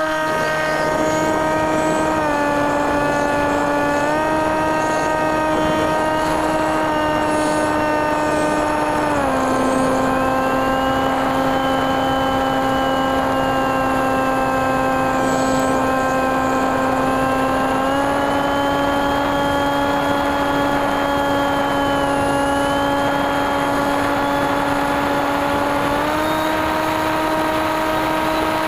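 NTM 28-26 brushless motor spinning an 8x6 propeller, heard from the aircraft's onboard camera as a steady, even-pitched hum. Its pitch steps down about two seconds in, back up at four, down again around nine, and up near eighteen and twenty-six seconds, over a steady hiss.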